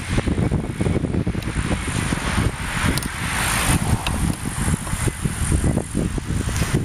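Cars passing on a nearby road, the hiss of one swelling and fading about three seconds in, over a steady low rumble of wind buffeting the microphone.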